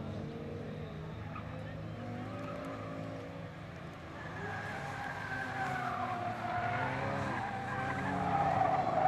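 Mini Cooper S engine running hard through a track corner, its pitch rising and falling with the throttle. The tyres squeal from about four seconds in, louder near the end.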